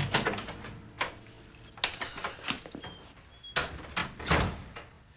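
A run of clicks and knocks from a door and objects being handled, with heavier thuds about three and a half to four and a half seconds in and two short faint beeps just before them.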